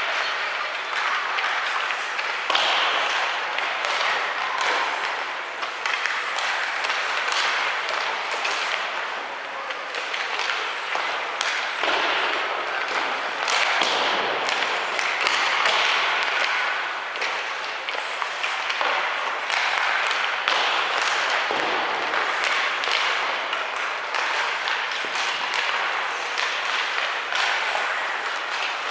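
Ice hockey game in a rink: a steady wash of crowd noise with frequent sharp taps and knocks of sticks and puck on the ice and boards.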